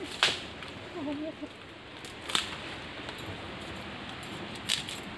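Dry sticks cracking and snapping as firewood is gathered: three sharp cracks, one near the start, one about two and a half seconds in and one near the end.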